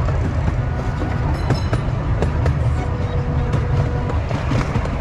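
Miniature ride-on train rolling along its track, heard from an open passenger car: a steady low rumble with scattered clicks from the wheels on the rails.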